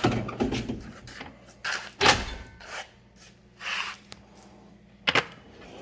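Drawers of a Snap-on Epiq tool chest sliding open and shut, a series of separate metal clunks and slide noises, loudest about two seconds in, with a sharp knock near the end.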